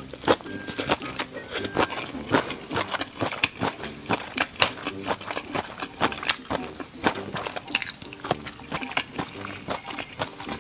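Close-up chewing of a mouthful of stir-fried instant noodles with vegetables, with frequent crisp clicks and crunches, several a second.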